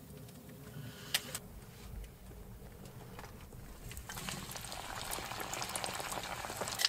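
Bannock dough deep-frying in hot oil in a can on a wood stove: a crackling sizzle that starts about four seconds in and grows steadily louder, the oil running too hot. A couple of light clicks come about a second in.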